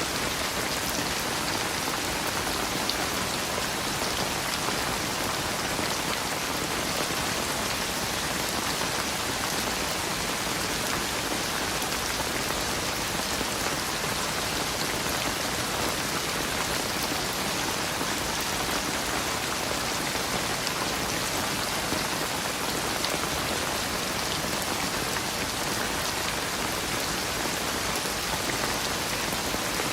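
Steady, heavy rain falling on a surface, a dense even hiss with fine drop patter.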